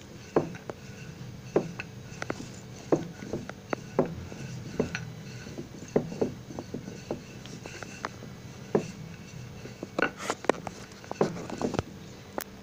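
A wooden rolling pin rolling out a stack of thin maida dough sheets, with irregular knocks and clicks as it rolls and taps on the board, about one or two a second and coming more thickly about ten seconds in.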